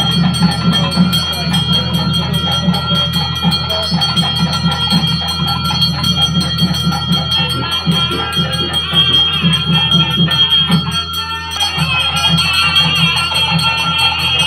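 Tamil wedding music: fast, steady drumming under a held drone, with a wavering high melody coming in about two-thirds of the way through. It is typical of the nadaswaram-and-thavil music played as the thali is tied.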